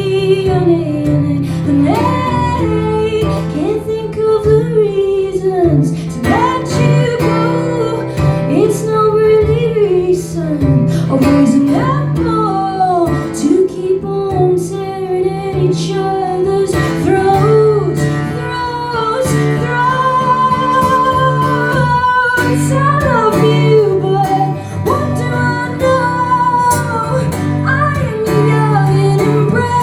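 Live band music: a woman singing with guitar accompaniment, the song running on without a break.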